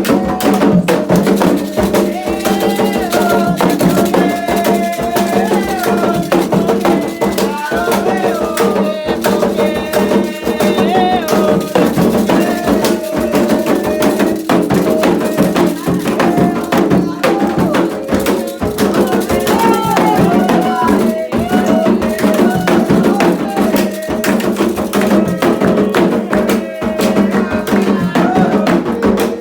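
Candomblé ceremonial music: continuous drumming with rattles and wood-block-like percussion under sung chant.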